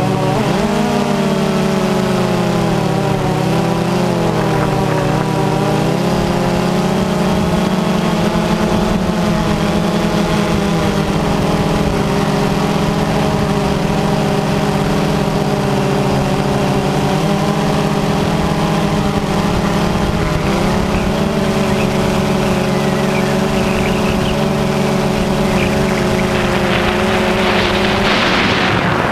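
Multirotor drone's electric motors and propellers humming steadily from on board, the pitch drifting slightly as the throttle changes. Wind buffets the microphone near the end.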